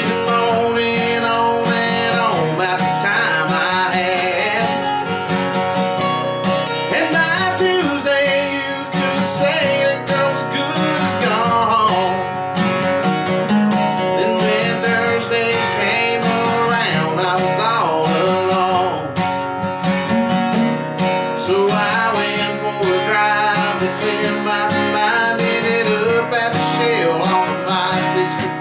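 Two acoustic guitars strummed and picked together, with a man singing a country song over them.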